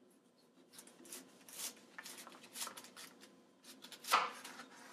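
Large kitchen knife cutting down through a raw cauliflower head on a wooden board: a series of crisp crunching strokes as the blade works through florets and stalk, the loudest about four seconds in.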